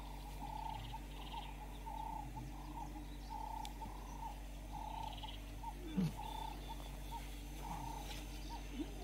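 A small animal calling in an even rhythm, a short call about every second and a half, with a short falling call about six seconds in.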